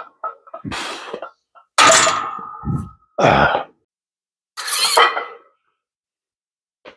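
A man winded after a set of barbell bench presses, gasping and coughing in four loud bursts over about four seconds, after a few short clicks at the start.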